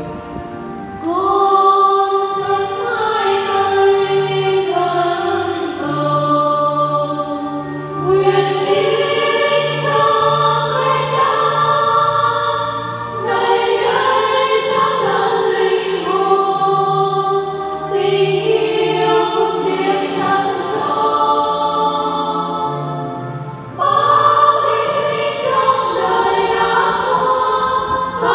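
Church choir singing a hymn in sung phrases of about five seconds each, with brief pauses between them.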